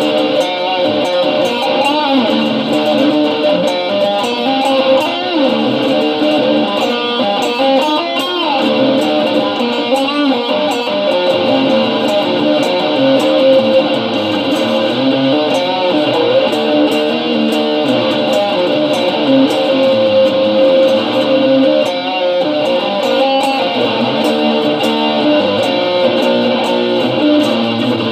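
Guitar played as an improvisation: a continuous stream of notes with some wavering, vibrato-like pitches.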